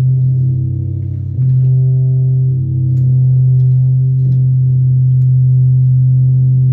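Loud, steady low musical drone with layered overtones, swelling louder about a second and a half in, with a few faint clicks over it.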